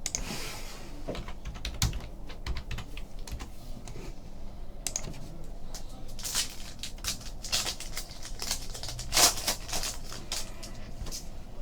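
Trading cards being handled and sorted: a dense, irregular run of light clicks and rustles, with a few louder swishes of plastic or paper.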